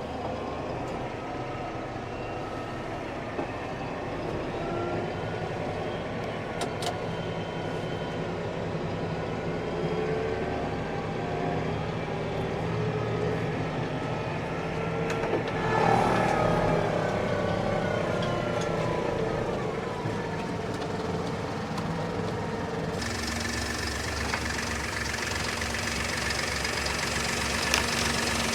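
Valtra tractor's diesel engine running, louder about halfway through and then easing down in pitch. The sound changes abruptly a few seconds before the end.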